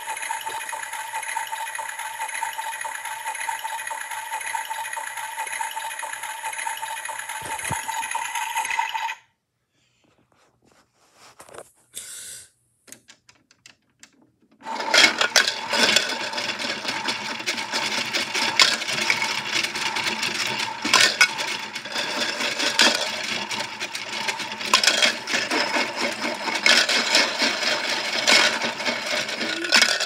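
Washmatic toy washing machine running: a steady motor whir for about nine seconds that cuts off, a pause with a few clicks, then the drum starts again with a busy clicking rattle as the cookies tumble inside.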